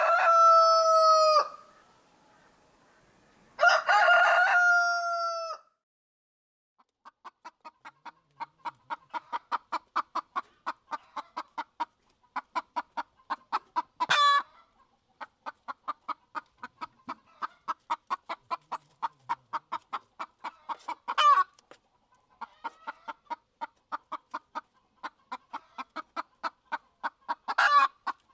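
A rooster crowing twice, then a long run of rapid clucks, about five a second, broken three times by a short sharp squawk, like a chicken's cackle.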